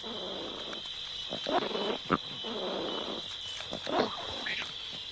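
Leopard cubs play-fighting, giving several short, rasping growls and snarls.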